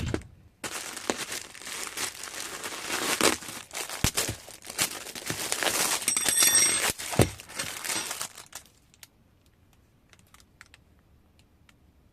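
Crinkling and rustling of something being handled up close, full of small crackles, with a brief high squeak about six seconds in. It stops about eight and a half seconds in, leaving only a few faint clicks.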